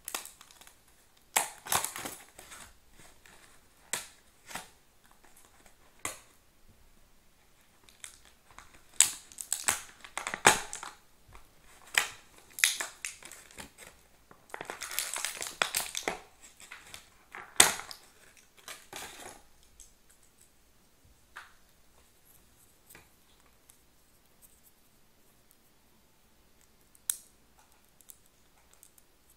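Action-figure packaging being torn and crinkled open by hand: irregular crackling, tearing and sharp snaps of cardboard and plastic, busiest in the first twenty seconds, with a sharp snap the loudest, then only a few isolated clicks.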